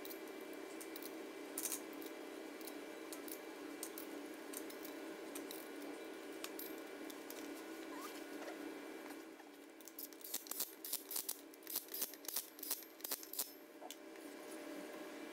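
Steel flywheel bolts and lock tab clinking as the bolts are fitted by hand into the crankshaft flange, with scattered clicks and a quick run of metallic clicks about ten seconds in. A steady hum runs underneath.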